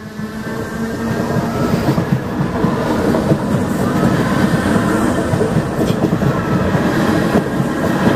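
DART electric commuter train passing close by, a steady rumble with the clatter of its wheels over the rails. It builds up over the first second.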